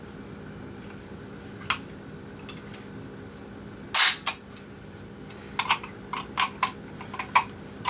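Remington Model 742 semi-automatic rifle's action being worked by hand: a single click, then a sharp metallic snap about four seconds in, followed closely by a second. After that comes a run of smaller clicks and rattles as the detachable magazine is worked loose.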